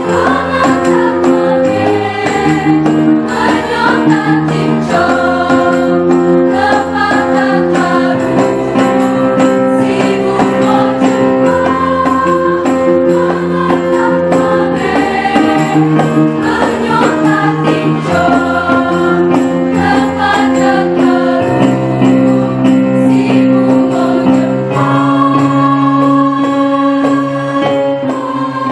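A choir of girls' voices singing in harmony, with long held notes over sustained low chords, fading out near the end.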